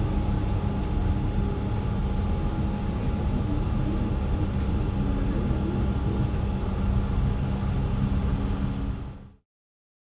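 Marina diesel pump running steadily while dispensing fuel, a constant hum that fades out about nine seconds in.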